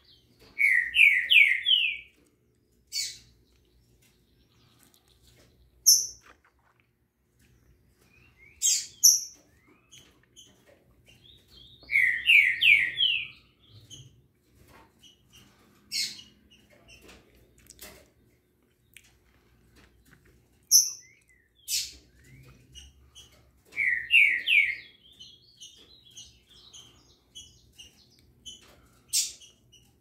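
Caged songbirds singing and calling: a loud phrase of four or five quick notes comes three times, about every eleven or twelve seconds, with sharp, high single chips and short calls in between.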